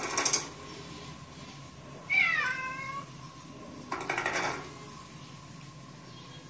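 A cat meows once about two seconds in: a call of about a second whose pitch drops and then levels off. Two short noisy bursts come just before and after it, over a faint steady whine.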